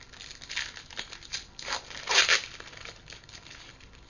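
Foil wrapper of a hockey card pack being crinkled and torn open, in irregular rustling bursts with the loudest tear about two seconds in.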